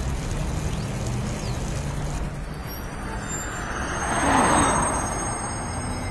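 A car whooshes past, a rush of noise that swells and fades about four seconds in.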